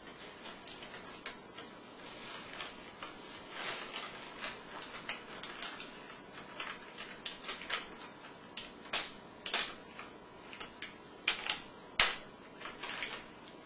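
Irregular clicks, taps and short scraping or rustling sounds of kitchen things being handled at a mixing bowl as a boxed pumpkin bread mix goes in.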